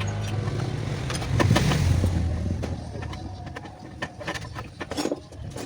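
A low steady hum that fades away over the first two seconds, then scattered light clicks and knocks of refrigerator scrap parts being handled during dismantling.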